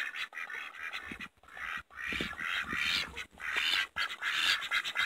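White domestic ducks quacking again and again in short calls, with brief gaps between them.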